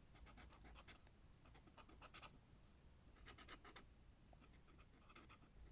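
Faint scratching of a colouring stick rubbed back and forth on a colouring-book page, in several short bursts of quick strokes.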